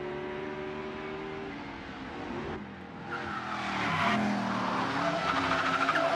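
Sports car engine running fast, then tires squealing and skidding as the car slides through a turn, loudest in the second half.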